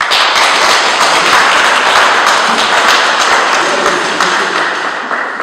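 Applause from a small group, hand claps breaking out suddenly and running on thick and steady, then starting to tail off near the end.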